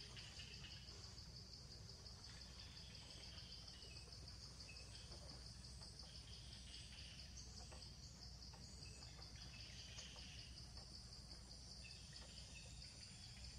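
Faint outdoor ambience: insects keep up a steady, high-pitched pulsing drone, with scattered faint chirps over a low background rumble.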